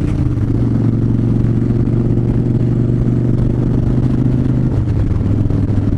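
Harley-Davidson Fat Bob's V-twin engine running steadily under way, its note shifting slightly about five seconds in.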